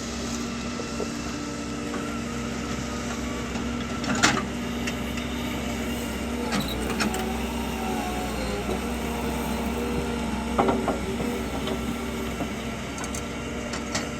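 A heavy vehicle's engine running steadily, with a few sharp metallic clanks about four seconds in and again near eleven seconds.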